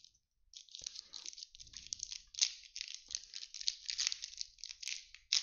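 The shiny foil wrapper of a 2020 Topps Fire baseball card pack crinkling and tearing as it is ripped open by hand. It starts about a second in as a dense run of small crackles.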